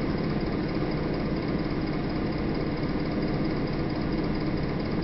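Steady low rumbling background noise, like a running motor, with no distinct events.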